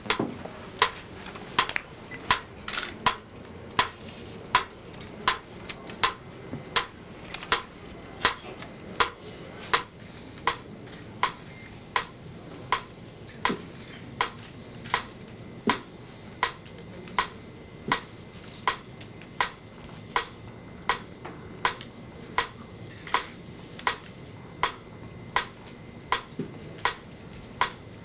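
A metronome ticking at a steady beat, about three ticks every two seconds. It sets the pulse by which the performers read numbers off their adding-machine tape and act when their number comes up.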